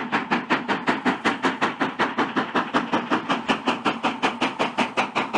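Steam locomotive running, its exhaust chuffing in quick, even beats of about six a second.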